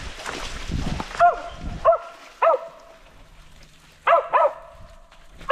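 Mountain cur barking at the base of a tree: short, sharp barks in a loose rhythm, three spaced evenly, then a quick pair and one more near the end. This is the dog's tree bark, the sign that it has a squirrel treed. A second of rustling comes before the first bark.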